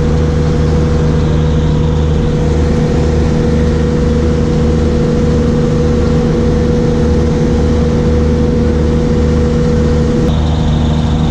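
Large engine running steadily at a constant speed, a steady droning hum. About ten seconds in, one of its tones drops out and a higher whine comes in.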